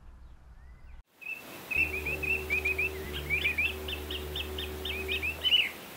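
Birdsong of quick, repeated chirps over a low, held musical drone, starting after a short silence about a second in.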